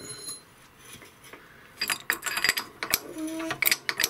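Rapid metallic clicking and clinking from about two seconds in, from a shop press being worked to push a rear subframe bushing further into its beam.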